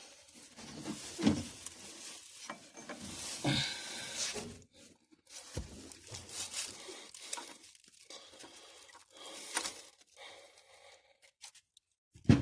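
Hand tools and metal parts clinking, knocking and scraping in an irregular series of short sounds, as a wrench works at bolts in a cramped spot.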